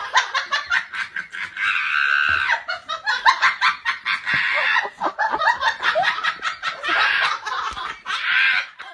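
High-pitched person's laughter in rapid, choppy fits, near-continuous, cutting off at the end.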